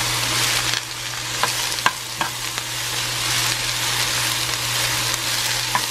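Sliced red cabbage, snow peas and bell pepper sizzling in oil in a nonstick frying pan as they are stirred with a spatula, a steady hiss with a few light clicks of the spatula against the pan about two seconds in.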